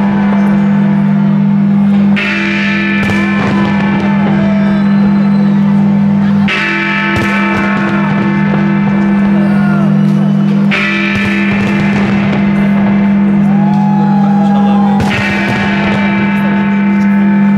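Loud music of held chords that change abruptly about every four seconds, with crowd voices and the cracks of bursting fireworks underneath.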